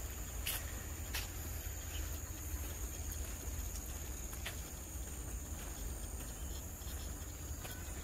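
Tropical forest ambience: a steady high-pitched drone of insects over a low rumble, with a few faint clicks.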